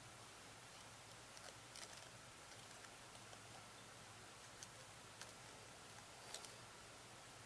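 Near silence: faint hiss with a few soft, scattered clicks, about five spread irregularly through it.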